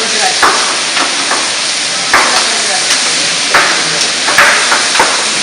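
Vegetables frying in olive oil in a stainless steel saucepan, a steady sizzle, with sharp knocks about once a second.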